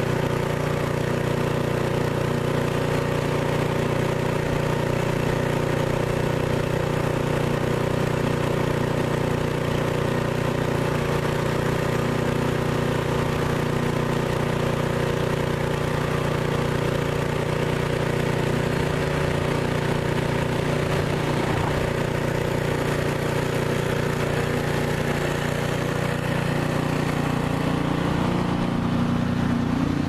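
An engine running steadily at a constant speed, with no change in pitch or level.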